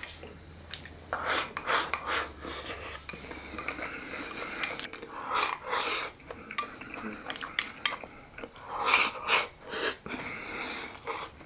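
Chopsticks clicking and scraping against a porcelain rice bowl as rice is shovelled from the bowl into the mouth, in several short irregular bursts.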